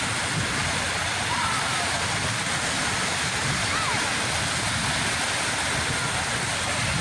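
Sea surf washing steadily on the shore, an unbroken hiss of breaking waves. A few faint, short gliding tones sound behind it.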